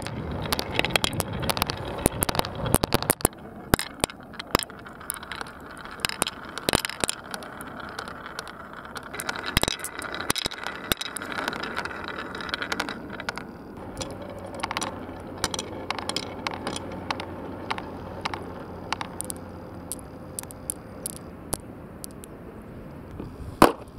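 Balls rolling down the grooves of a carved wooden marble run, rumbling along the wood and clicking against it and against each other, busiest in the first half and thinning out later. One sharp louder knock comes near the end as balls collide in the line at the bottom.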